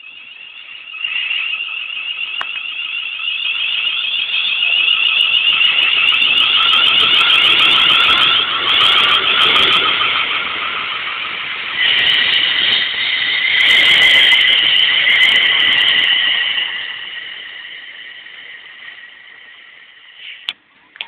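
Electric multiple unit passing through at speed: a high-pitched whine swells as it approaches, drops in pitch about halfway through as it goes by, then fades as it draws away.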